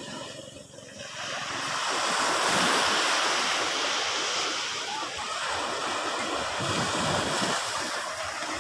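Sea surf breaking on a sand beach: after a brief lull, a wave rushes in about a second and a half in, swelling to a loud wash and slowly easing as it spreads up the shore.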